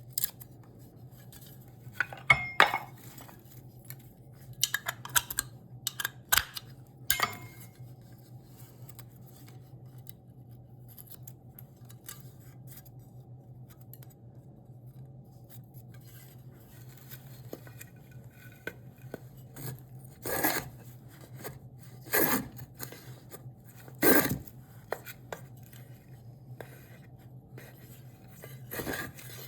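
Hand tools working a piece of cherry wood. First come scattered clinks and knocks, then after a quiet spell, slow scraping strokes about one every two seconds.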